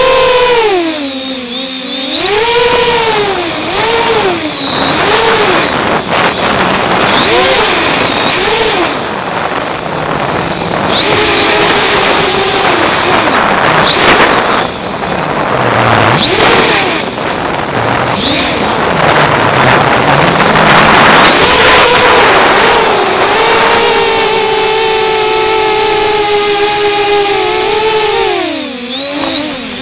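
FPV quadcopter's brushless motors and propellers whining in flight, heard from the drone's onboard camera. The pitch swoops up and down again and again with the throttle, holds steady for several seconds near the end, then drops away. A rushing noise fills the stretches where the whine fades.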